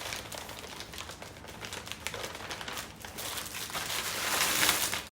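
Packaging crinkling and rustling as a parcel is unwrapped, growing louder near the end and then cutting off suddenly.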